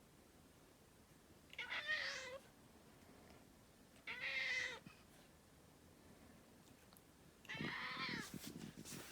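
A domestic cat meowing three times, a few seconds apart, each call ending on a falling note: eager calls in response to being offered a treat. A few sharp clicks come near the end.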